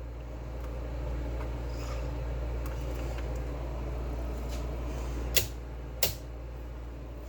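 Tube television powering up slowly on a variac at about 80 volts: a steady low electrical hum with a faint hiss, its horizontal section just starting to run. Two sharp clicks come a little over halfway through, under a second apart.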